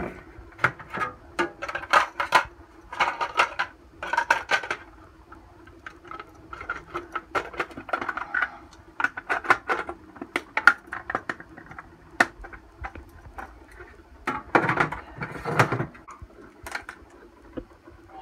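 Plastic clicks, knocks and clatter of a water-filter pitcher being handled: the reservoir, lid and filter cartridge fitted together, a faint steady hum behind.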